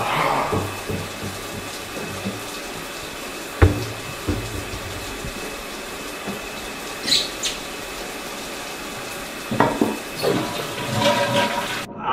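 Water rushing steadily in a bathroom, from a toilet flushing or a shower running, with a single sharp knock a few seconds in.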